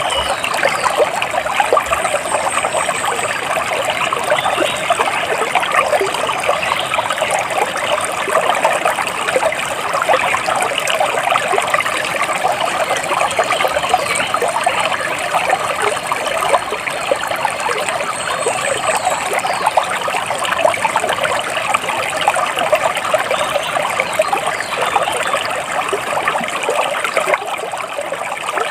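Water splashing and trickling steadily, like a small stream running over rocks, with a few faint high bird calls now and then.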